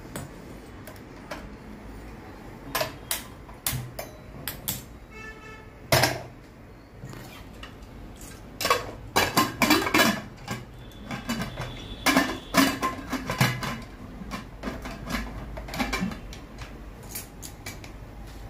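Aluminium pressure cooker being handled on a gas stove burner, its lid and long handles worked into place: a run of metal clanks and clicks, busiest in the middle.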